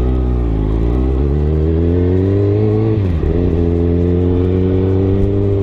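Kawasaki ZX-6R 636 inline-four sport bike engine and exhaust accelerating under the rider. The revs climb for about three seconds, drop sharply at an upshift, then build steadily again.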